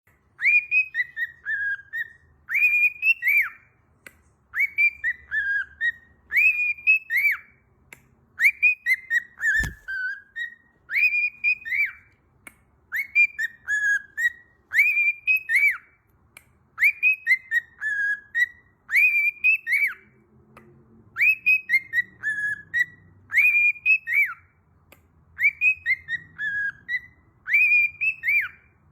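A parrot whistling the same short two-part phrase over and over, a quick rising note then a falling glide, repeated about every two seconds. There is one low thump about ten seconds in.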